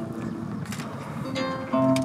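Instrumental music without vocals: a held chord dies away, then plucked string notes begin about one and a half seconds in.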